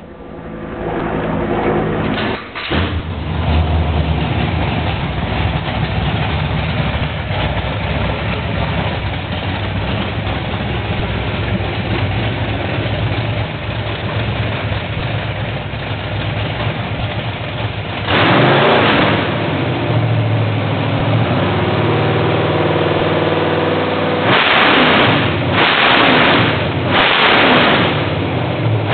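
1986 Chevrolet Blazer's 454 big-block V8 with open headers, cranked from dash switches and catching about two and a half seconds in, then running steadily. It is revved once about eighteen seconds in and three times in quick succession near the end.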